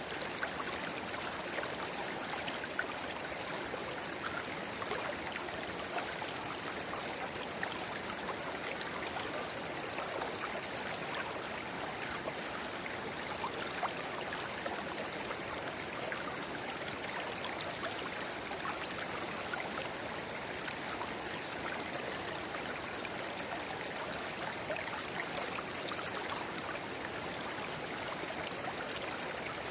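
A shallow river babbling steadily, with a small spring-fed rivulet trickling and splashing into it, giving a constant wash of water flecked with many small splashes.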